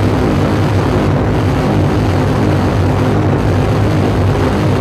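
Loud, dense electronic noise drone from a live noise set played through effects pedals and a mixing desk, heavy in the low end with a steady hum, its hiss thinning briefly twice.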